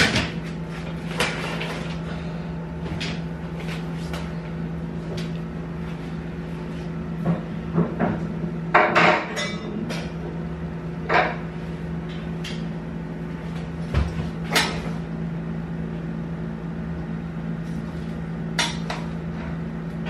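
Scattered clicks, knocks and clatters of things being handled on and around a top-loading washing machine, a cluster of them about halfway through, over a steady low hum.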